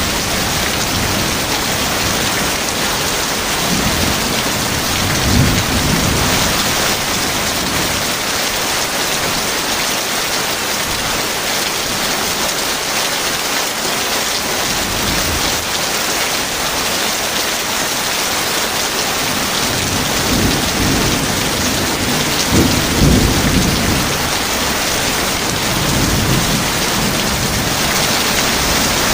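Heavy rain falling steadily, with rolls of thunder rumbling low twice: about five seconds in, and again, louder, around two-thirds of the way through.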